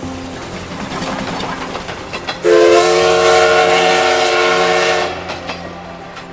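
Added train sound effect: one loud whistle blast lasting about two and a half seconds, beginning about two and a half seconds in, over the clickety-clack of wheels running on rail joints.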